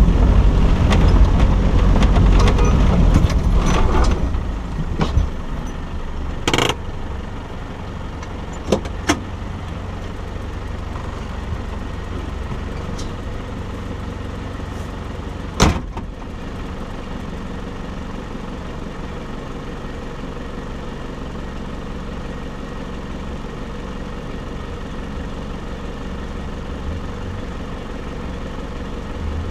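An off-road 4x4's engine: driving over the first few seconds with rattles and knocks from the vehicle, then dropping to a steady idle as it comes to a stop. A few sharp clicks sound over the idle, the loudest about 16 seconds in.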